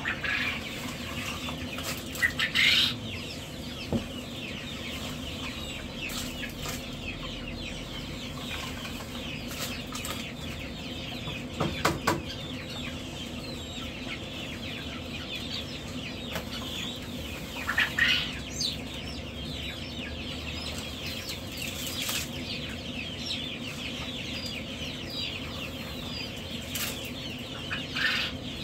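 A brooder full of chicks peeping continuously over a steady machine hum, with a few louder scrapes and knocks as a scraper works droppings off a tray.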